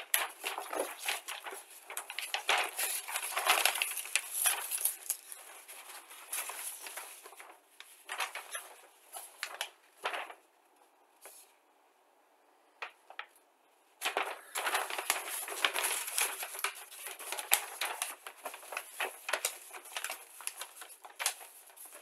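Crinkling and rustling of a paper instruction sheet being handled, in two spells of irregular crackles with a quiet gap of a few seconds between them.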